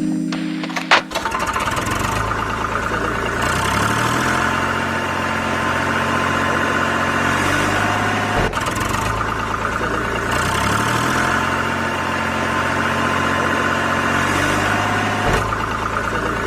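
Engine sound idling, its pitch stepping up and back down twice in the same pattern, after a click about a second in.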